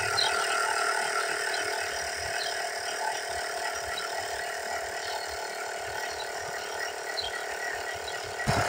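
Small battery-powered electric air pump running with a steady buzzing whir, inflating a moped's inner tube, then cut off abruptly near the end.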